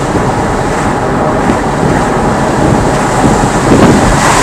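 Steady road and engine noise heard inside a moving car, a loud even rush with no distinct events.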